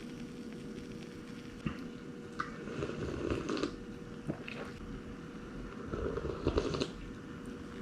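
Faint handling noises: a few light clicks and short rustling scrapes over a steady faint hum.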